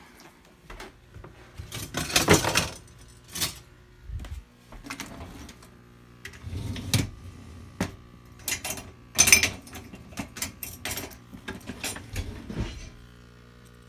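Kitchen handling noises: a dishwasher door being opened and its racks rattling, with a run of irregular clinks and knocks of dishes and utensils. Two louder clattering bursts come about 2 s and 9 s in, over a steady low hum.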